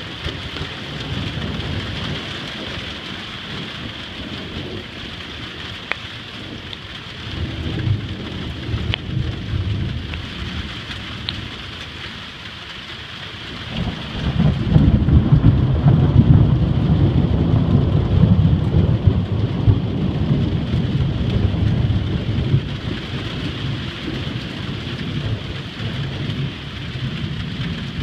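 Steady rain falling with rolling thunder: lighter rumbles in the first half, then a long, loud roll of thunder starting about halfway through that slowly fades over several seconds.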